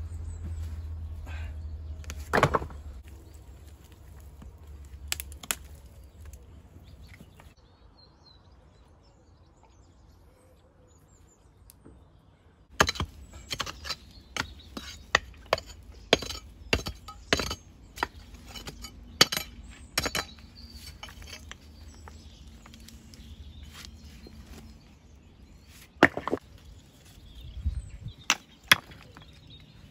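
A pick striking into stony soil at the base of a dry stone wall: a quick run of chopping blows from about 13 to 21 seconds in, then a few more near the end. A couple of knocks come a few seconds in.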